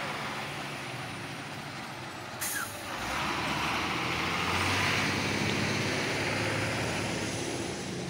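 Diesel tipper truck's engine running as it pulls away, growing louder from about three seconds in. Just before that there is a brief, sharp air-brake hiss.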